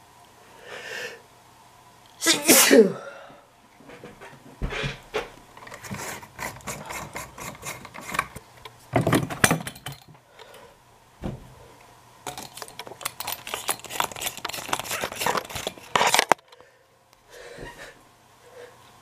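A man sneezes once, loudly, about two seconds in, one of a long fit of sneezes that he blames on allergies. Then comes a long stretch of scraping and clicking rustle, loud in places, which stops suddenly near the end, followed by a short breath.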